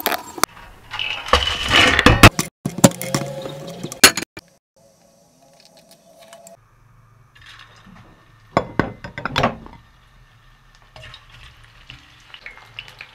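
Glass and metal kitchenware clinking and knocking in a few short clusters: a glass bowl, a steel pan and metal handled on a wooden cutting board. A quiet gap falls in the middle.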